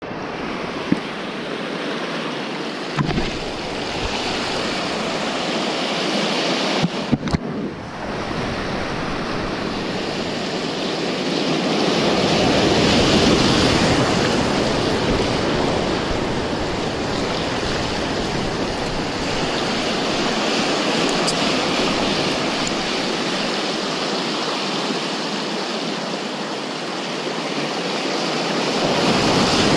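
Ocean surf washing over a rocky shoreline, swelling louder twice as bigger waves come in. A few short knocks are heard early on and about a quarter of the way through.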